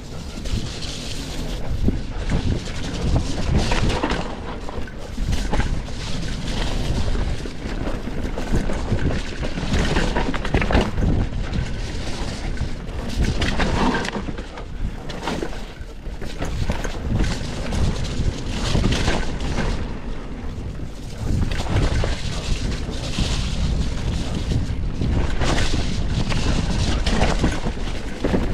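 Mountain bike descending a dirt singletrack: tyres on the trail and a steady clatter of knocks and rattles from the bike over bumps and roots.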